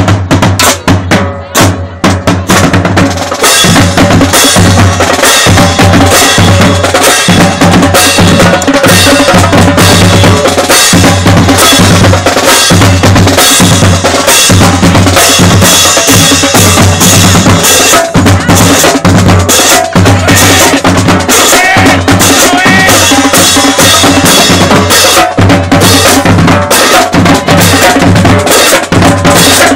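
Marching band drumline playing a loud cadence: snare drums, tenor drums and bass drums in a steady, driving rhythm, with crash cymbals. The sound grows fuller about three or four seconds in.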